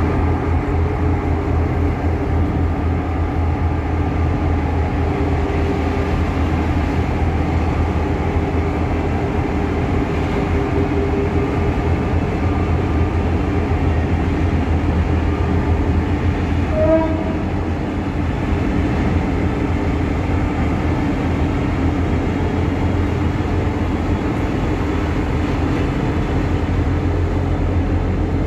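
Coal train running: a steady diesel locomotive drone over the rumble of the wagons, with a brief high tone about 17 seconds in.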